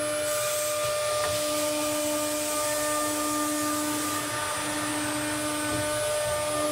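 Automatic tool change CNC router running: a steady whine from the spindle over a constant hiss.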